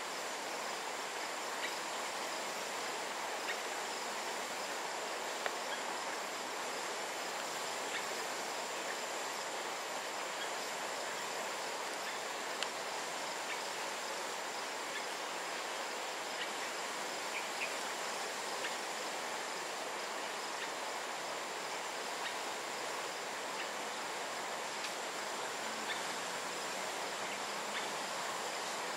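Steady insect drone of tropical forest, with a continuous high-pitched whine over a dense hiss, broken only by a few faint ticks.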